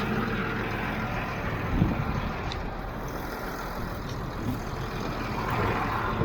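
Tractor engine running steadily, with a single thump about two seconds in.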